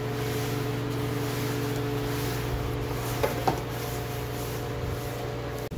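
Steady motor hum with evenly spaced tones, and two short clicks a little over three seconds in.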